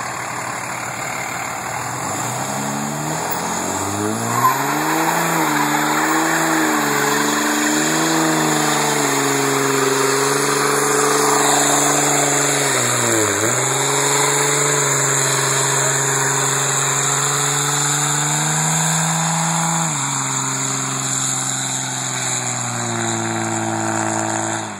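Dodge pickup's Cummins inline-six turbo diesel held at high revs during a burnout, its tyres spinning and squealing. The revs climb over the first few seconds and waver, dip sharply about halfway, drop a step near the end, then the engine cuts off suddenly.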